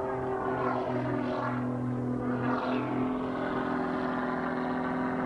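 Pitts Special aerobatic biplane's piston engine and propeller droning at an even pitch as it climbs vertically.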